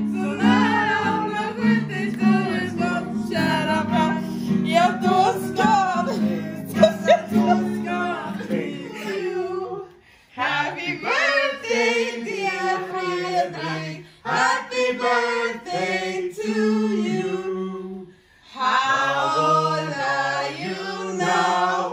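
A woman singing a song unaccompanied, in phrases broken by short pauses. For roughly the first nine seconds other held low notes, music or other voices, sound under her.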